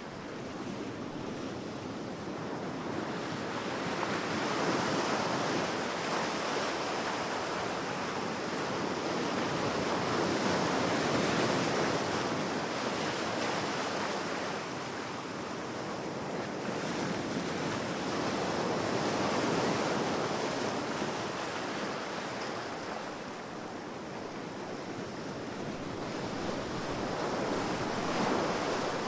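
Sea waves washing onto a beach, the surf swelling and easing in slow surges every several seconds.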